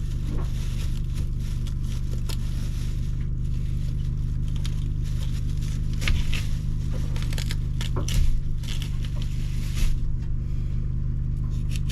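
Light kitchen handling sounds from preparing jalapeños: knife and plastic spoon scraping and crunching on a cutting board, with a few louder knocks about six, eight and ten seconds in, over a steady low hum.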